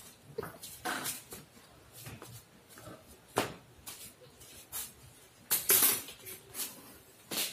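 Scattered light knocks and clatters of plastic toys on a tiled floor as a child tosses a plastic ring, with scuffs of slippered footsteps; the loudest knocks come about five and a half seconds in and again near the end.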